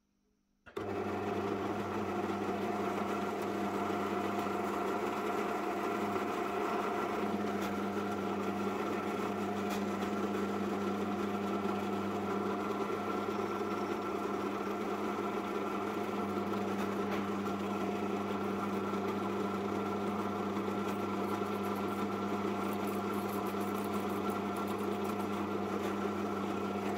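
Bench drill press motor running with a steady hum, starting up about a second in and switching off at the end, used to drill out a sheared screw in a pistol trigger guard.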